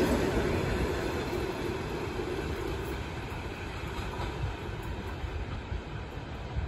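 ED4M electric commuter train rolling away along the track, its wheel and rail rumble fading steadily as it recedes.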